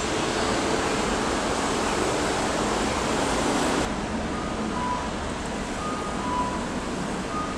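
Steady outdoor background noise, an even rush like wind, traffic or surf with no single clear source. The sound changes abruptly about four seconds in, and faint short high beeps then repeat every half second or so.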